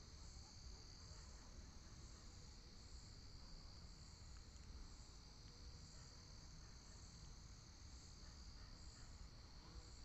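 Near silence: a faint, steady, high-pitched chirring in the background, over a soft low hum.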